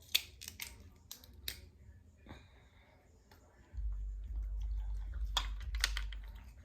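Close-up eating sounds: snow crab shells cracking and snapping between chewing, heard as a scatter of sharp clicks. A low rumble comes in about four seconds in.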